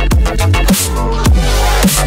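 Electronic dance music in a dubstep style, with a heavy bass line and a steady beat.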